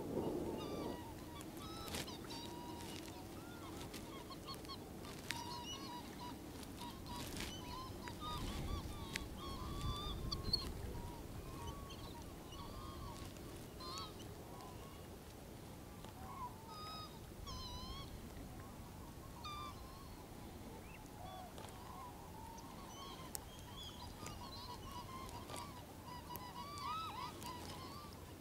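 A flock of waterbirds calling: many short, wavering calls overlapping throughout, with a low rumble of wind swelling near the middle.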